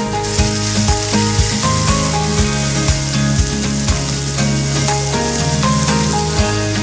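Lamb shanks sizzling as they sear in hot oil in a frying pan, a steady hiss, over background music with a steady beat.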